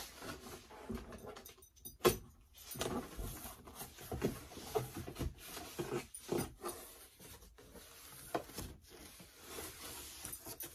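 A large cardboard shipping box being opened by hand: irregular scraping, rustling and tapping of cardboard and packing tape, with a sharp knock about two seconds in.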